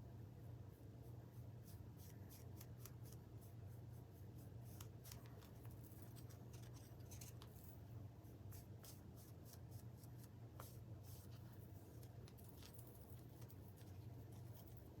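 Faint, quick scratchy strokes of a paintbrush on a small wooden cutout, many short strokes in a row, over a steady low hum.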